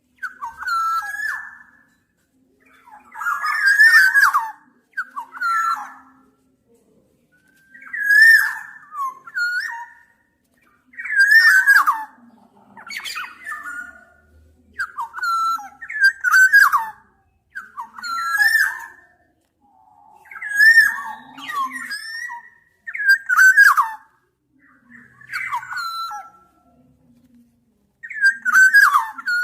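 Black-naped oriole singing: short fluting whistled phrases, many sliding down in pitch, repeated every one to two seconds with brief pauses between them.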